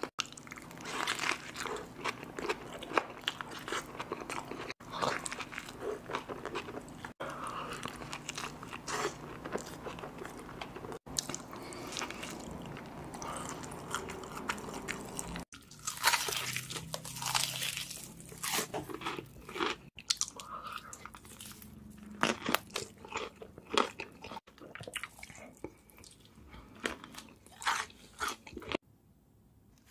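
Close-miked eating sounds: crunchy bites and chewing of burgers and fried food, in short clips joined by abrupt cuts.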